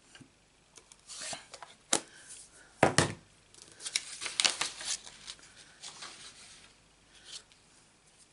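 Paper and cardstock being handled on a paper-crafting mat: sharp knocks about two and three seconds in as things are set down, then a run of paper sliding and rustling with light taps.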